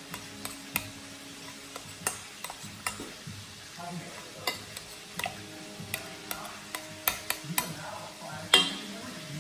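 A metal spoon stirring mashed potatoes in a stainless steel pot, clinking and scraping against the pot's sides in irregular sharp taps, the loudest near the end.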